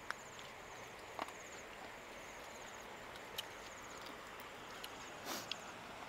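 Quiet outdoor ambience with an insect chirping high up in short pulsed bursts, repeating roughly once a second, and a few faint sharp clicks.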